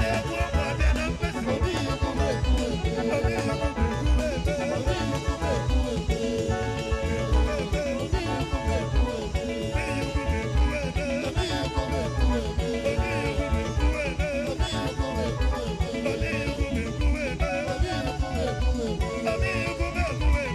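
Music with singing over a steady beat and instruments.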